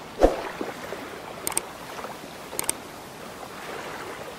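Steady lapping water, with a loud thump just after the start. About a second and a half in, and again about a second later, a quick double click of a mouse comes as the subscribe-button sound effect.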